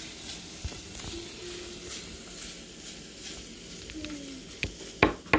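Kitchen knife chopping garlic cloves: two sharp knocks of the blade on the chopping surface near the end, after a few seconds of low room sound.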